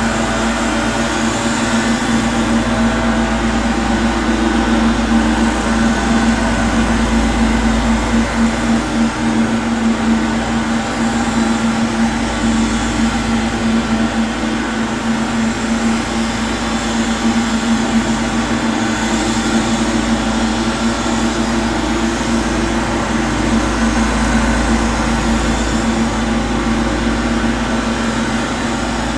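Gardening power machinery running steadily outside, heard from inside a room: an unbroken machine drone with a strong steady hum and a hiss above it.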